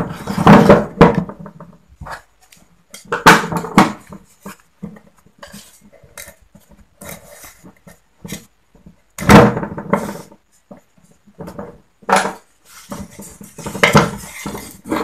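Screwdrivers clinking and scraping against a two-stroke oil pump and the metal engine cover it is mounted in, in irregular bunches of knocks and rattles with short pauses between them.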